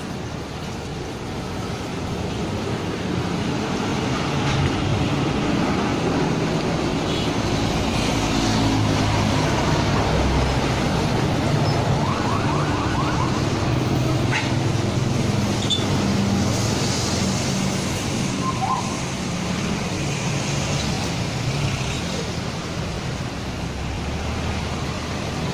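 Steady motor-vehicle engine and road traffic noise, running throughout, with a few faint short clicks.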